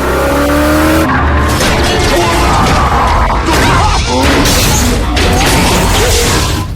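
Movie car-chase sound mix: car engines revving and tyres skidding, layered with music.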